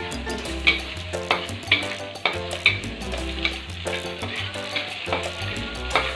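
Metal spatula scraping and stirring chopped tomatoes and chilies as they sizzle in a steel wok, with a sharp scrape about twice a second.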